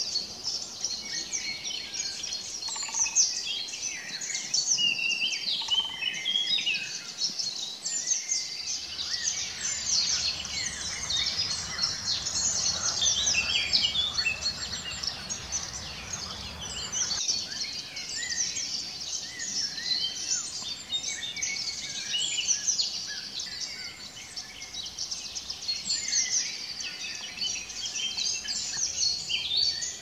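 A dense chorus of many songbirds singing at once, with overlapping chirps and trills throughout. From about eight seconds in, a low rushing noise runs underneath and stops abruptly near the middle.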